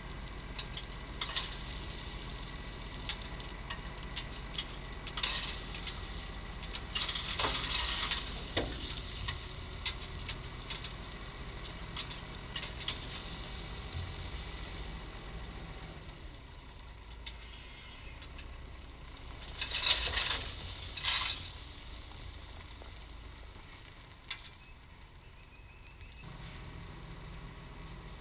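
Bobcat T870 compact track loader's diesel engine running with a low steady hum, with scattered clicks and scraping rattles from gravel work, loudest about 8 and 20 seconds in.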